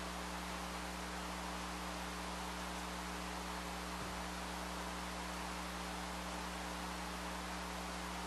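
Steady electrical hum with a constant hiss: background noise of the recording, with no other sound standing out.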